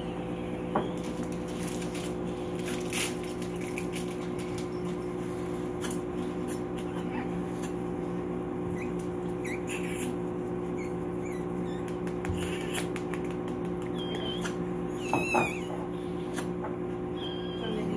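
Newborn French bulldog puppies giving a few short, high squeaks, mostly in the last few seconds, over the rustle of towels rubbing them. A steady electrical hum runs underneath.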